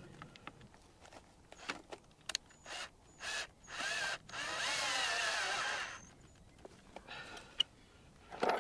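Cordless drill run in several short trigger bursts, then one longer run of about a second and a half whose pitch rises and then falls, while fitting insulated rail joiners to miniature-railway track.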